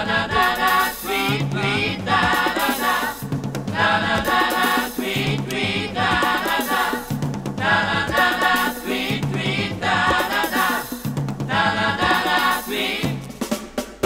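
Pop song playing: short phrases that repeat about every second and a quarter, carried by what sounds like a group of voices over drums.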